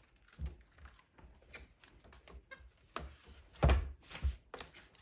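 A capuchin monkey handling a large hardcover picture book on carpet: irregular taps and page flaps, with two louder thumps about three-quarters of the way through as the book's cover and pages hit the floor.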